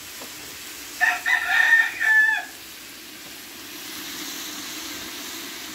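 A rooster crows once about a second in, a call of about a second and a half that ends on a held note dropping at the end, over the steady sizzle of chicken cooking in a pot on a wood fire.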